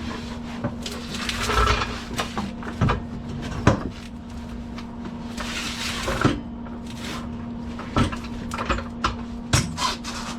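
A series of separate knocks and clunks, like metal parts or tools being handled, over a steady electrical hum, with two short hissing stretches between them.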